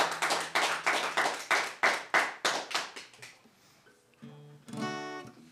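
Hand claps from a small live audience, dying away about three seconds in. Then an acoustic guitar: a plucked note and a strummed chord left ringing near the end.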